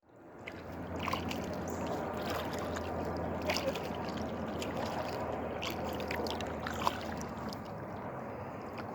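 Water lapping and sloshing around a kayak, with a low steady hum underneath and a few small knocks.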